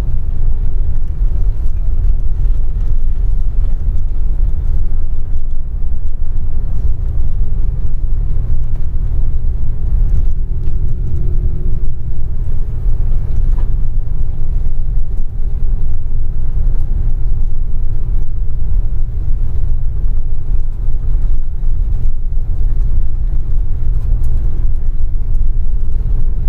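Bus engine and tyre rumble heard inside the cabin while driving on a snow-packed road, a steady, loud low rumble.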